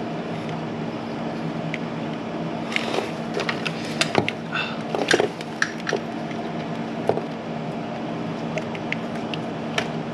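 Scattered sharp plastic clicks and knocks as an electrical connector on a car's radiator fan is worked loose by hand. They come over a steady background hum.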